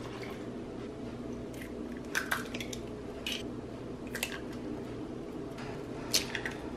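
Eggs being cracked over a plastic mixing bowl of cake mix: a handful of short sharp taps and cracks of shell, the loudest near the end, over a steady low hum.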